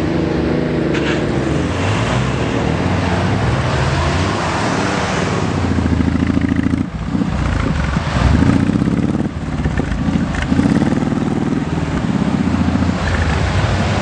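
Off-road 4x4's engine working hard, the revs rising and falling again and again, with a brief drop about seven seconds in.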